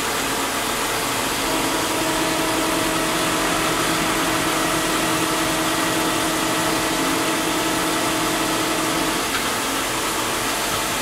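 1946 Kearney and Trecker Model 2K milling machine running, its table moving on rapid traverse: a steady machine hum with a whine that comes in about a second and a half in and drops out near the end.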